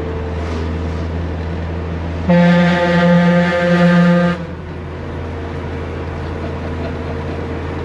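Multi-trumpet air horn on a Toyota Corolla AE86, each trumpet about two feet long and fed from a compressor, sounding one long blast of about two seconds with several tones at once, like a ship's horn. The blast starts about two seconds in and cuts off sharply, over the steady drone of the car being driven.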